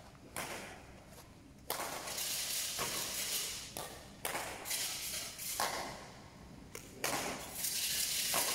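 Badminton rally: rackets striking a shuttlecock back and forth, a string of sharp hits roughly a second apart, each echoing in a large sports hall.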